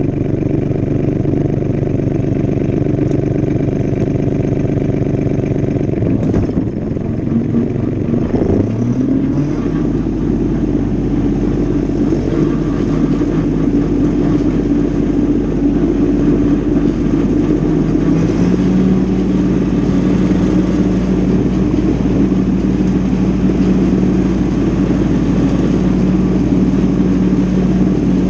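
Mahindra compact tractor's diesel engine running under load while pulling a brush hog through grass. About six seconds in the note wavers, then the engine speed climbs in two steps to a higher steady pitch.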